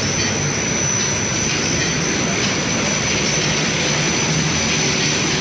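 Pita bread production line running: a steady, loud machine noise of its rollers, chain drives and conveyors, with a thin high-pitched whine over it.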